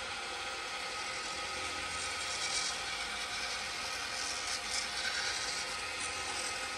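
Wood lathe running steadily with a motor whine while a shop towel wipes walnut oil onto the spinning wooden handle, adding brief hissing rubs about two and a half and five seconds in.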